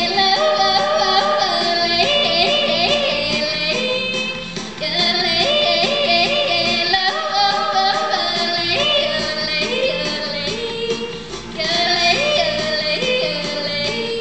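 Teenage girl yodeling over country backing music, her voice flipping quickly up and down in pitch. Near the end she moves into a long held note.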